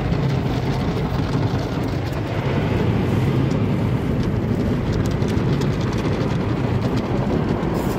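Automatic car wash working over a car, heard from inside the cabin: rotating cloth brushes scrubbing the windows and body with water spraying, a steady loud rumble and hiss with faint quick slaps.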